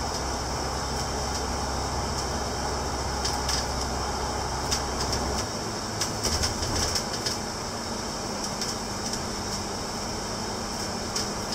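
Cabin noise inside a moving double-decker bus on the upper deck: steady engine and road noise with frequent sharp rattles and clicks from the bodywork. The low drone underneath drops away about halfway through.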